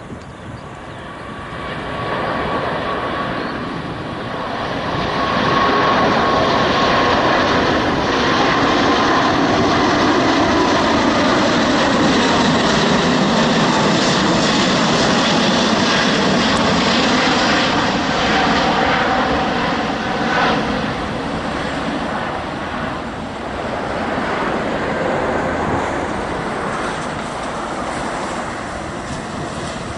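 Four Engine Alliance GP7200 turbofans of an Airbus A380-861 at takeoff thrust as the airliner climbs out and passes close by: a loud jet roar that builds over the first few seconds, holds, and eases a little as the aircraft moves away, with a whining tone that drops in pitch as it passes.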